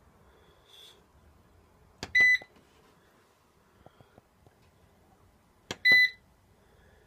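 Hybrid solar inverter's control-panel beeper giving two short high beeps about four seconds apart, each coming right after the click of a front-panel button being pressed to step through the display pages.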